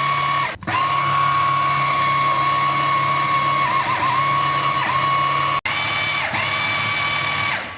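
Electric food chopper's motor running at high speed, chopping cooked lentils and spices into a paste, with a steady high whine. It stops briefly about half a second in and its pitch dips now and then as the blades meet the food.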